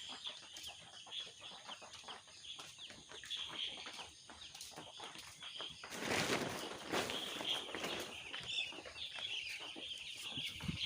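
A flock of two-day-old broiler chicks peeping continuously in many short high chirps. About six seconds in, a brief louder noise rises over them.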